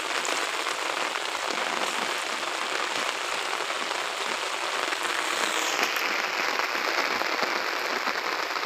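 Heavy rain falling steadily, a dense even hiss with no single drops standing out; the hiss turns a little duller about six seconds in.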